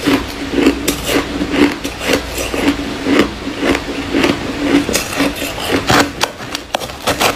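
Hard, frost-crusted ice being chewed with the mouth closed: loud, rhythmic crunches, about two a second.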